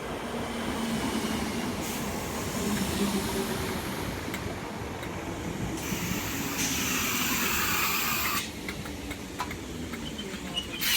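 Merseyrail electric train running along the line: a steady rumble with stretches of hiss that start and stop abruptly.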